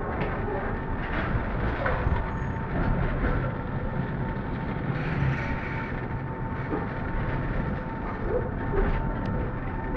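Tram running along street track, heard from inside the passenger car: a steady low rumble of wheels on the rails with a thin steady whine over it and a few light knocks.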